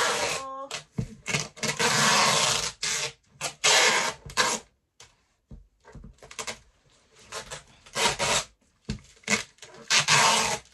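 Brown packing tape pulled off the roll onto a cardboard box in several long rasping strips of about a second each, with short pauses and light taps between as it is pressed down.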